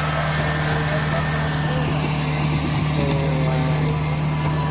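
Rice combine harvester's engine running at a steady speed, a constant loud drone.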